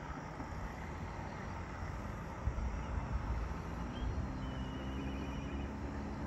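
Outdoor ambience by a river: a low rumble like wind on the microphone that gusts about two and a half seconds in. A steady low engine hum comes in at about the same time, and a few short, high bird chirps follow near the middle and end.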